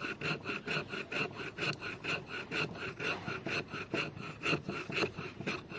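Bushcraft knife (Dulo Knives Woody) shaving thin curls off a dry, weathered wooden stick, carving a feather stick for tinder: short scraping strokes, about four a second, in an even rhythm.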